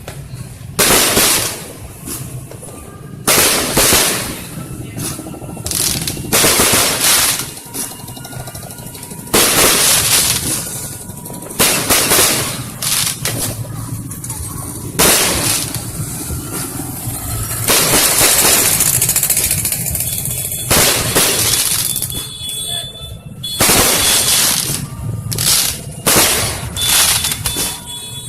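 Fireworks going off in a rapid series: about a dozen loud bangs, one every two to three seconds, each trailing off over a second or so.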